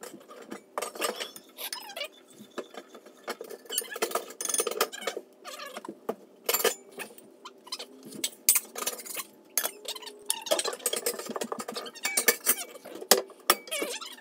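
Cookware clattering and clinking as pot lids are handled and a glass lid is set on a stainless steel saucepan, to cover the ginger syrup after it is taken off the heat. A faint steady low hum runs underneath.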